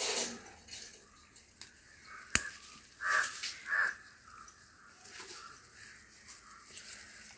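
A crow cawing twice, two harsh caws about three seconds in. A sharp click, the loudest sound, comes just before them, and a short burst of noise comes at the very start.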